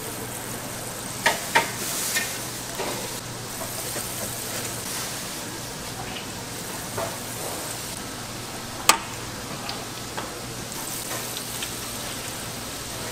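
Fried snacks (twigim) sizzling in hot oil, a steady hiss broken by a few sharp clicks, the loudest about nine seconds in.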